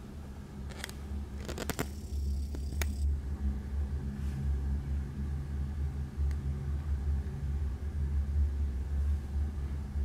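Low, steady rumble of a freight train rolling past, heard through window glass, with a few sharp clicks about one to three seconds in.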